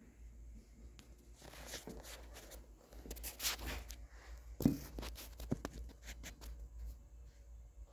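Scraping and handling noises with a sharp metallic knock about halfway through and a lighter one just after, as the treadmill roller is worked in a bench vise.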